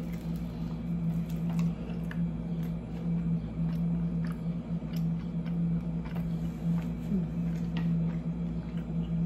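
Close-up biting and chewing of a toasted tortilla taco, with small wet mouth clicks scattered at irregular times. A steady low hum runs underneath.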